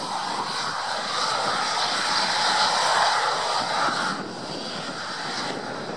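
Eurofighter Typhoon's twin EJ200 turbofan engines running as the jet rolls on the ground, a steady jet rush and whine. It drops a little in loudness about four seconds in.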